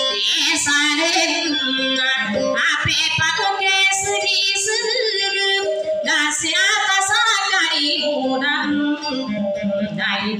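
A woman singing a dayunday song in a wavering, ornamented voice with heavy vibrato, to her own acoustic guitar accompaniment.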